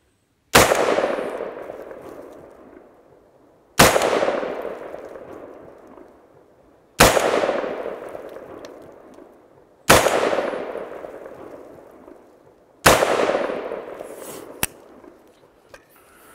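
Five unsuppressed rifle shots from a Sharps Range Master AR-15 in .25-45 Sharps, fired slowly about three seconds apart. Each crack rings out in a long echo that fades over two to three seconds. A short click follows shortly after the last shot.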